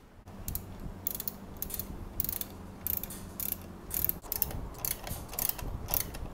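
Hand tool working in short, repeated rasping strokes, about two a second, as the mudguard is fastened onto a Yamaha Y16ZR motorcycle.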